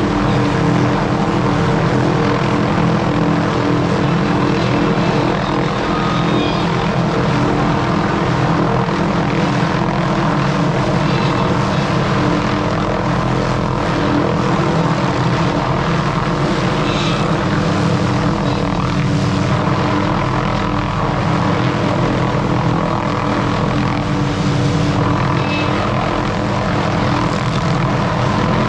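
A small engine-powered tree-trimming tool running steadily at constant speed for the whole stretch.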